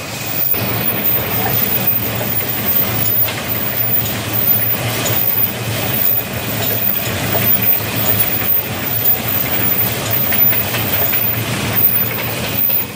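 Automatic paper cup packing machine running together with paper cup forming machines: a steady low machine hum with frequent clattering clicks.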